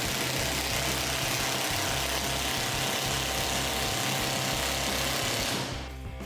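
Background music with a steady bass beat, under a loud, steady hissing noise that fades out near the end.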